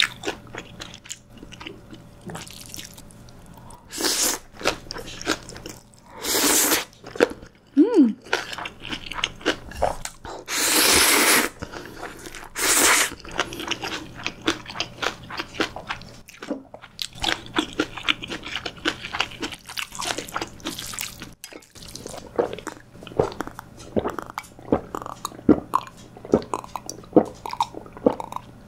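Close-miked eating of Chapagetti jjajang noodles and green onion kimchi: steady wet chewing and crunching with many small mouth clicks, broken by four longer slurps, the longest about ten seconds in.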